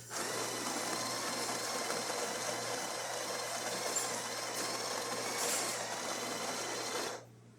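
Built-in conical burr grinder of a Breville Barista espresso machine grinding a dose of coffee beans: a steady motor-and-burr grind that cuts off abruptly about seven seconds in.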